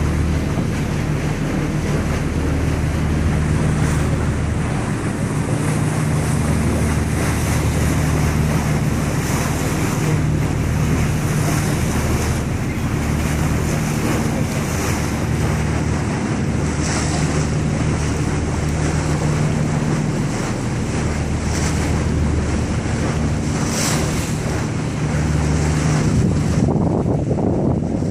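Tour boat's engine running with a steady low drone that swells and fades a little every few seconds, under wind buffeting the microphone and the rush of water past the boat.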